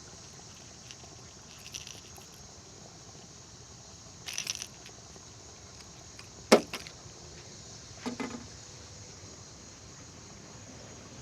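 Steady high insect hum with a few short clicks and rustles; the sharpest click comes about six and a half seconds in, with another about a second and a half later.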